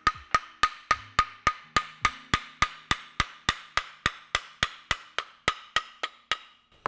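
Metal-headed hammer tapping the end of a wooden Japanese plane block (kanna dai) in a quick, even series of about three and a half taps a second, each tap with a short ringing tone. The taps are knocking a tightly fitted blade loose so it can be drawn out of the block.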